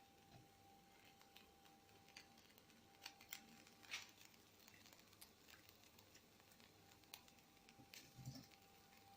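Near silence: scattered faint light taps and clicks, a few slightly stronger in the middle and near the end, over a faint steady high tone.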